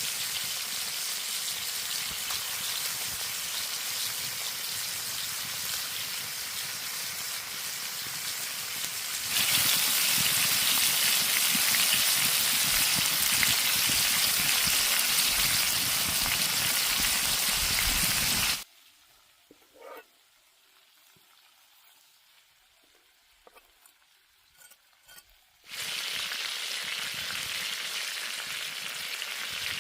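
Food sizzling as it fries. The sizzle is steady, gets louder about a third of the way in, and then cuts off suddenly to a quiet stretch with a few faint clicks. The sizzling resumes near the end.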